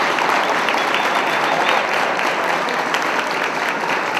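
An audience applauding: many hands clapping together in a steady, even wash.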